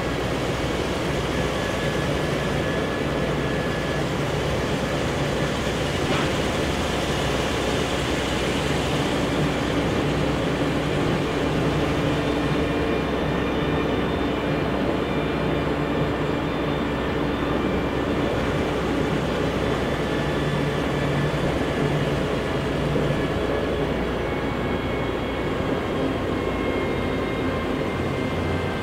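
Scania OSC11 G01 11-litre six-cylinder turbo CNG engine of a Scania L113CRB bus heard from inside the cabin while the bus is driving, mixed with road noise. The engine's tone shifts a few times.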